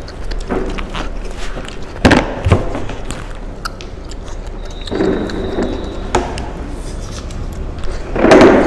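Two people eating off plastic plates without hands, mouths in the food: chewing and slurping noises, with two sharp knocks about two seconds in and a louder burst near the end.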